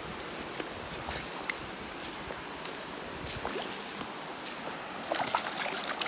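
Mountain creek running and trickling over rocks into a pool, with scattered small splashes that bunch together near the end.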